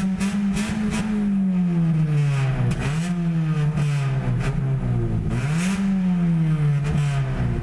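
Car engine heard from inside the car, its note sinking slowly as the revs fall, then climbing back up quickly, twice.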